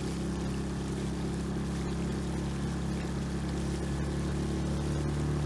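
6 hp Yamaha outboard motor running steadily, pushing an inflatable skiff under way, with a slight rise in loudness toward the end as the boat picks up speed.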